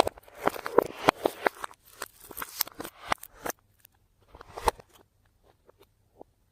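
Slime being squished and kneaded by hand, giving a quick run of wet clicks and pops that thins to a few scattered pops after about three and a half seconds.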